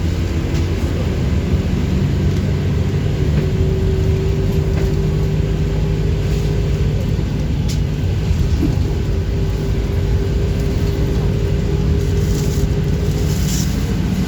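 City bus driving along, heard from inside: a steady engine and road rumble with a held drive whine and a few light rattles.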